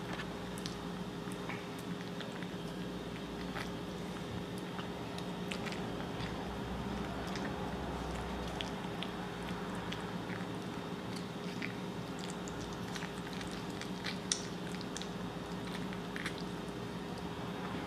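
A kitten eating wet cat food from a bowl: irregular small wet chewing and biting clicks over a steady low hum.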